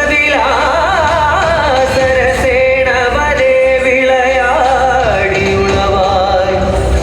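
Dance music playing: a song with a singing voice over instrumental accompaniment, steady and loud throughout.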